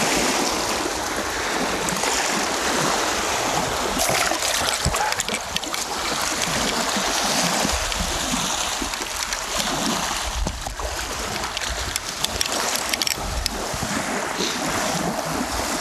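Gusty wind and choppy waves on a reservoir, heard as a steady rushing noise, with the wind buffeting the microphone in uneven low rumbles.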